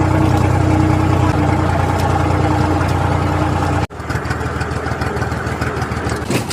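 An engine running steadily with a low hum; about four seconds in the sound cuts off sharply and gives way to a quieter, rougher noise with a few clicks.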